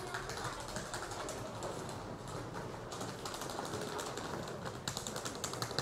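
Station platform ambience: many footsteps clicking on the hard platform floor, growing denser about three seconds in.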